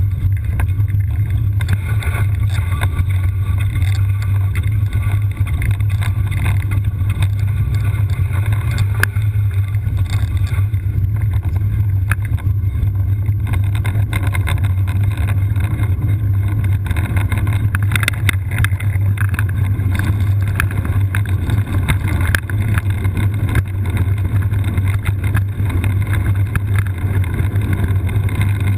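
All-terrain wheelchair rolling down a rough trail: a steady low rumble with many small clicks and rattles from the wheels and frame.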